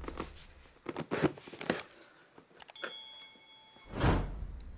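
Cardboard and packing being handled: light rustles and knocks, a short steady electronic beep about three seconds in, and a louder rustle near the end.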